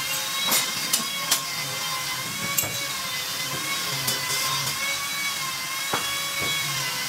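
Handheld electric angle grinder with an abrasive disc running at a steady whine, the disc worked against a stainless steel tube, with sharp ticks and knocks now and then as it touches and shifts on the metal.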